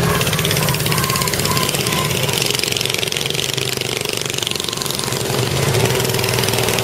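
Several small petrol engines of miniature replica semi-trucks running together as they drive round in circles, a steady mix of rapid engine pulses.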